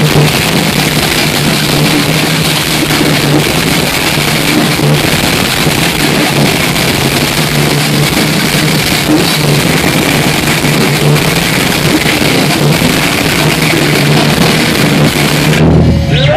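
Death metal band playing live: heavily distorted electric guitars, bass and drums in a dense, loud wall of sound. The song stops abruptly near the end.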